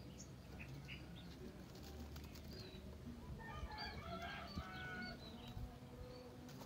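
A burst of high chirping animal calls, several overlapping, from about three and a half to five seconds in, over a faint steady background.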